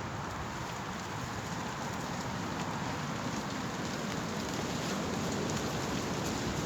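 Steady rain falling, a dense scatter of small drop ticks over a hiss, with a low gusting wind rumble that grows slightly louder near the end.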